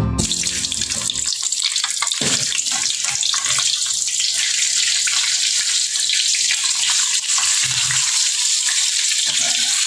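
Egg frying in hot oil in a pan, a steady sizzle.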